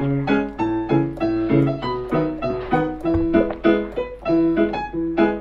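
Background music: a melody of short, evenly spaced notes, about three or four a second.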